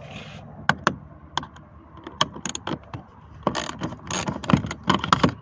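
Irregular metallic clicks and rattles of a hand tool working loose the screw that holds an inner door handle trim, coming faster and louder in the last two seconds.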